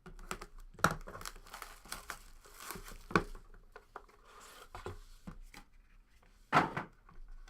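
Plastic wrapping on a trading-card box being torn open and crinkled, with irregular rustling and a few sharp snaps, the loudest about a second in, about three seconds in and near the end.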